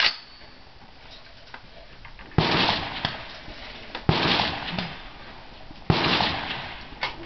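M14 rifle firing four shots, one right at the start and then three evenly spaced about a second and a half apart, each shot trailing off in an echo.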